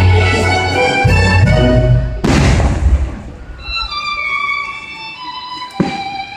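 Orchestral Christmas music led by violins, full and bass-heavy at first. A sharp firework bang comes about two seconds in, the music thins to quieter held string notes, and another bang comes near the end.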